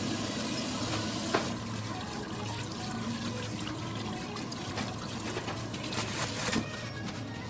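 Tap water running into a sink as hands are washed under it, with a sharp knock just over a second in.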